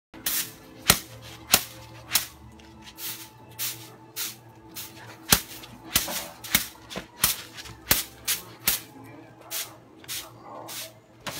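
Short-handled broom swept across a concrete path in brisk, regular strokes, a swish about every two-thirds of a second.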